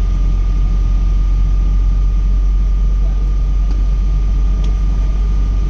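Boeing 777 airliner's engines and air systems running with a steady low rumble and a thin, constant high whine over it.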